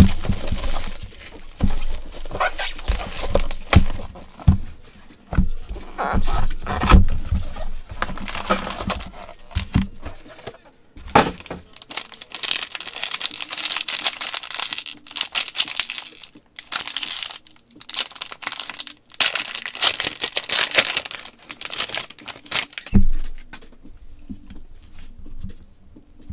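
Shiny foil trading-card pack wrapper crinkling and being torn open by gloved hands, in repeated bursts with short pauses.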